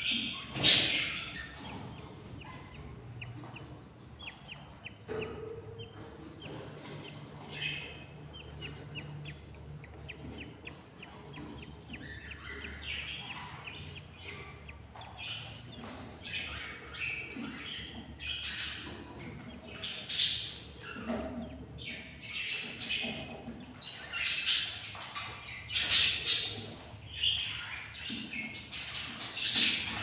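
Budgerigars chirping: short, sharp high-pitched calls every second or two, with softer cheeping in between. The calls come more thickly in the second half.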